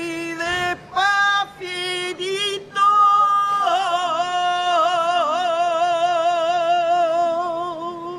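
A saeta: one unaccompanied voice singing a flamenco-style Holy Week lament, with several short phrases split by breaths in the first three seconds, then one long ornamented note with a wavering vibrato.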